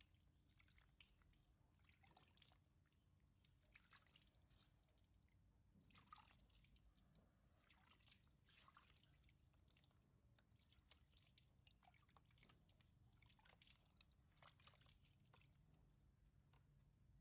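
Near silence, with faint scattered clicks and soft wet ticks.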